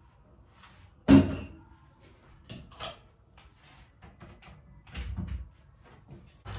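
Kitchen utensils and dishes being handled: one sharp knock about a second in, then several lighter clicks and taps.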